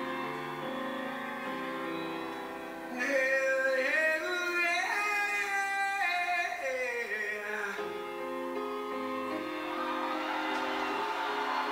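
Live rock ballad played back: a grand piano plays alone, then a high male lead vocal with wavering, gliding pitch comes in about three seconds in and sings for about five seconds before the piano carries on alone.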